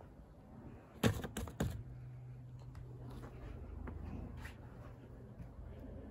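A quick cluster of sharp clicks about a second in, followed by fainter scattered ticks over a low steady hum.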